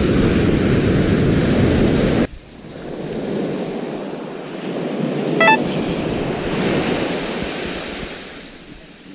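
Surf breaking and washing up a sandy beach, with wind buffeting the microphone loudly for the first two seconds or so until it cuts off suddenly. The waves then swell and recede more softly, with a brief high chirp about halfway through.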